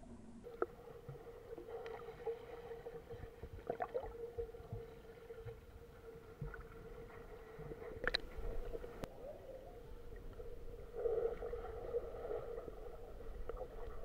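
Muffled underwater sound from an action camera sealed in its waterproof housing: a steady hum over a low water rumble, with scattered faint clicks and knocks, the sharpest about eight seconds in.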